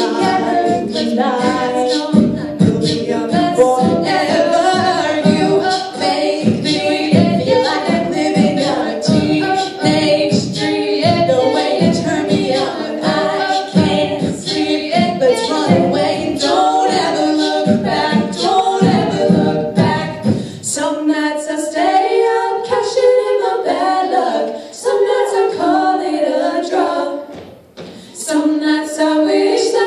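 A cappella vocal group singing in harmony over a steady beat with low bass. About two-thirds of the way through the beat and bass drop out and only the voices carry on, with a short break near the end before they come back in.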